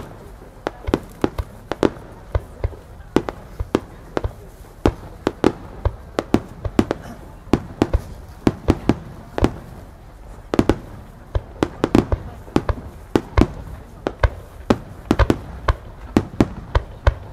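Aerial firework shells bursting in a continuous rapid barrage: sharp bangs several a second, unevenly spaced, with no pause.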